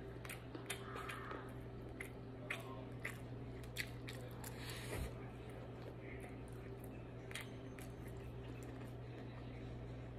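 Faint mouth sounds of chewing shrimp fried rice, with scattered small clicks of a plastic fork picking at rice on a paper plate, over a steady low hum.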